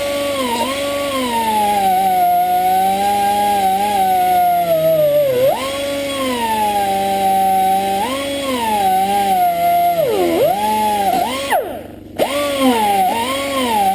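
Air tool spinning a steel wire brush against a Ford Essex V6 valve to scrub off grime. Its whine sags in pitch each time the brush is pressed on and climbs back when eased off. About twelve seconds in it is let off and nearly stops for a moment, then spins back up.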